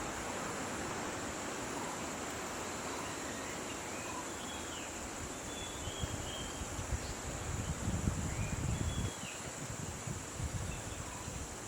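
Steady high-pitched insect drone with a few short bird chirps scattered through it. A low rumbling noise rises from about three-quarters of the way in and fades a little later.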